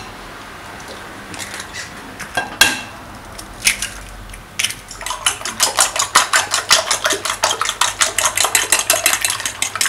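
A few separate clinks against a ceramic bowl, then from about halfway a fork beating eggs in the bowl: fast, even clicks of the tines on the bowl, about five a second.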